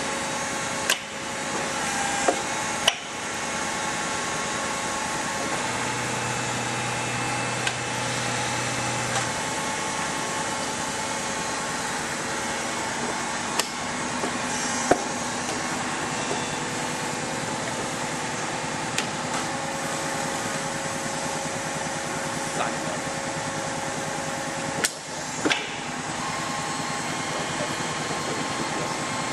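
Retrofitted Kekeisen CNC milling machine running: a steady machine hum with several held tones, broken by a few sharp clicks and knocks. A low hum comes in about six seconds in and stops about three seconds later.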